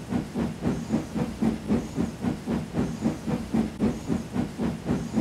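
Steam locomotive chuffing steadily, with even exhaust beats at about four a second.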